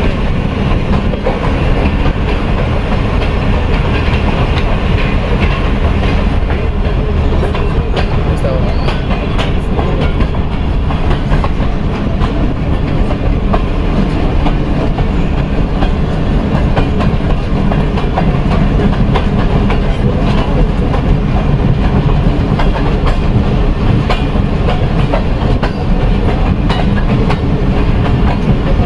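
Passenger coaches of the Pakistan Railways Jaffar Express running on the track, heard from aboard: a steady loud rumble of wheels on rails with scattered clicks and clatter from the rail joints.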